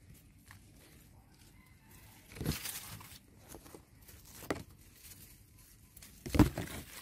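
Leaves and twigs of a small tree rustling in three short bursts as a baby monkey climbs among the branches: about two and a half seconds in, near the middle, and loudest near the end.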